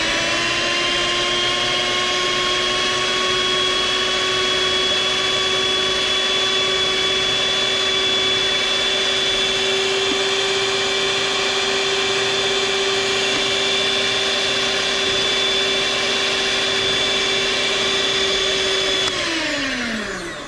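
Small electric stand mixer running, its beaters churning pancake batter in a steel bowl: a steady motor whine that comes up to speed at the start, holds one pitch, then falls away as the mixer is switched off near the end.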